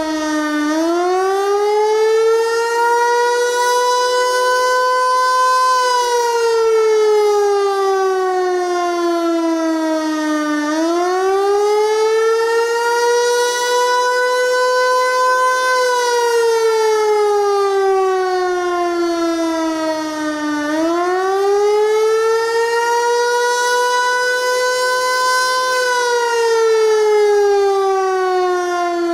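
Federal Signal Eclipse 8 electronic outdoor warning siren sounding a wail tone. The pitch climbs, levels off, then slides slowly down, repeating about every ten seconds, so it goes through roughly three rise-and-fall cycles.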